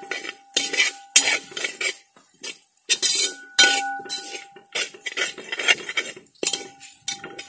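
A perforated steel spoon scraping and knocking against a wide metal cooking pot while stirring onions and spices, in irregular strokes about one or two a second. The louder strikes leave the pot ringing.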